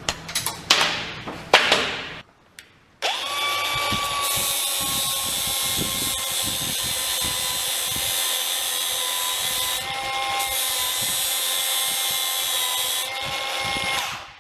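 A few knocks, then a small angle grinder starts about three seconds in and runs with a steady whine for about eleven seconds, grinding down the end of a replacement motor's steel drive shaft, before it stops near the end.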